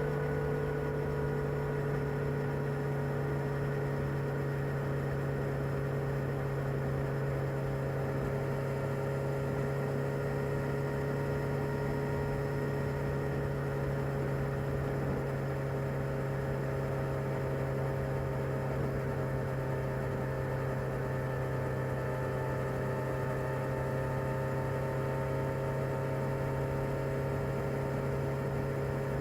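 Kawasaki ZR7S motorcycle's air-cooled inline-four engine on its stock exhaust, idling with a steady, even hum.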